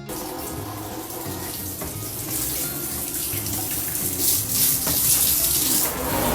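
Running water, a steady rushing that starts suddenly and grows louder about halfway through.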